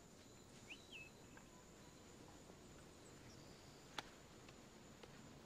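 Near silence: faint outdoor ambience with a few faint short chirps about a second in and a single sharp click about four seconds in.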